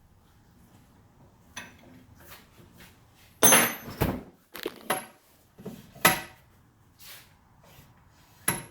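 Metal clanks and clinks from tools and steel parts being handled while disassembling an old Craftsman drill press: a burst of clatter about three and a half seconds in, then single sharp clanks with a brief metallic ring around six seconds and near the end.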